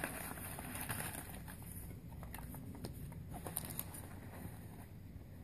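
Paper and thin cardboard packaging rustling and crinkling as it is handled, with irregular light taps and clicks, quieter near the end.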